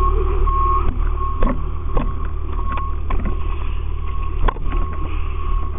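Fire engine's diesel engine running with a steady low rumble. A short beep repeats about every three-quarters of a second, and a few sharp knocks of equipment cut through, the loudest about four and a half seconds in.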